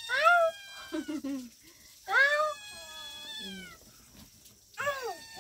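A cat meowing three times, about every two and a half seconds, each meow rising then falling in pitch.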